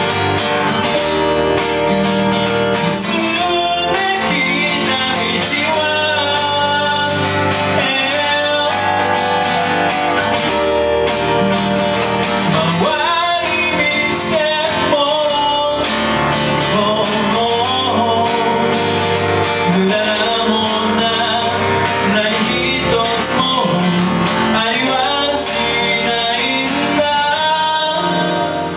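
A man singing to his strummed acoustic guitar, accompanied by a Yamaha electronic keyboard: a live acoustic pop song played by a guitar-and-keyboard duo.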